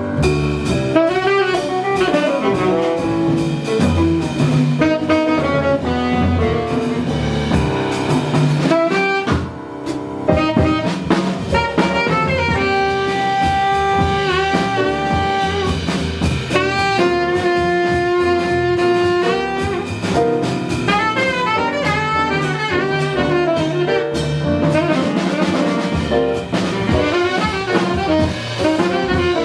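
Live jazz band playing: a saxophone carries the lead over drum kit and double bass, with several long held notes.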